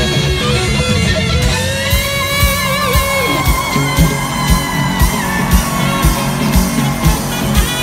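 Live rock band playing at full volume: an electric guitar lead with long, bending held notes over a steady drum beat and bass.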